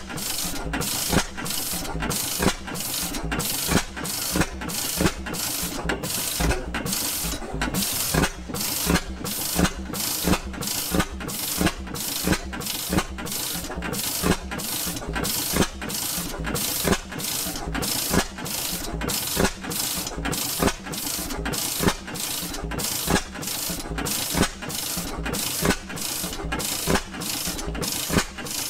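Circa 1926 Reid Type A two-cycle hot-tube-ignition oil-field engine running steadily. Its firing beats come evenly a little over a second apart, with mechanical clatter in between. It is firing a little harder than the owner wants for idling.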